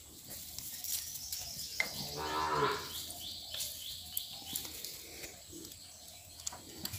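A cow moos once, a single call of about a second, about two seconds in. Birds chirp throughout.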